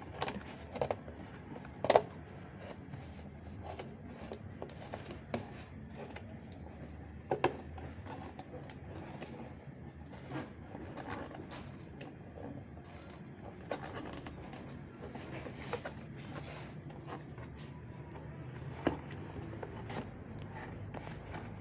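A small package being opened by hand: scattered clicks, scrapes and rustles of packaging, with two sharper knocks about two and seven seconds in.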